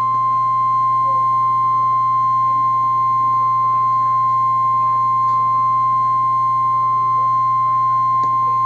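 NOAA Weather Radio 1050 Hz warning alarm tone: a single loud, steady beep held without a break, signalling that a tornado warning is being broadcast.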